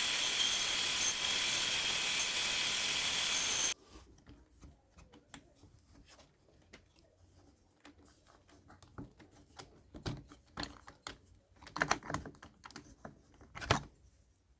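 Bandsaw on a DIY duplicating-lathe rig running with a steady hiss and faint whine, cutting off suddenly about four seconds in. Then light clicks and knocks of wood and tools being handled, the loudest near the end.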